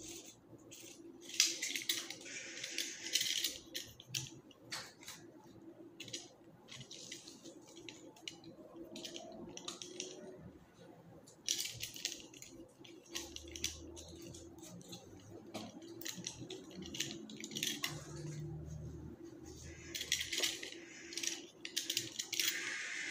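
Flower stems and leaves rustling as they are handled and placed in an arrangement, in several spells of a second or two, with small clicks and snips from floral scissors trimming stems. A faint steady hum runs underneath.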